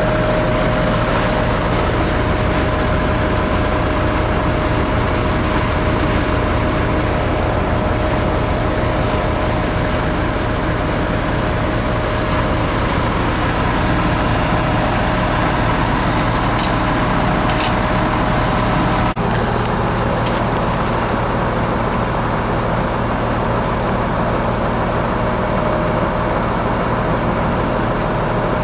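Heavy diesel engine of an articulated rock truck running steadily, with a thin steady whine over it. There is a sudden brief dropout about two-thirds of the way through, and the whine is weaker after it.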